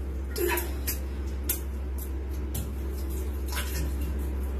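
A bare foot squashing soft faeces into a tiled shower-floor drain: irregular wet squelches and taps over a steady low hum.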